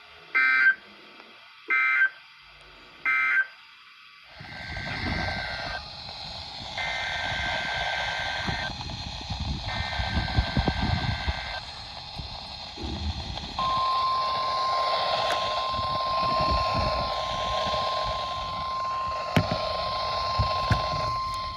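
NOAA Weather Radio test signal heard through a receiver. First come three short warbling data bursts, the end-of-message code of one station's test. Then, through radio static, come three longer data bursts of the next station's test header, followed by the steady warning alarm tone, which starts about thirteen seconds in.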